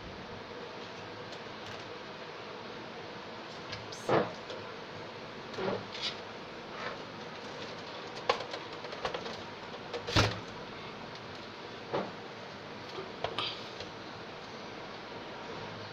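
Scattered clicks and knocks of computer parts being handled during a PC build, about ten in all at irregular intervals, over a steady hiss.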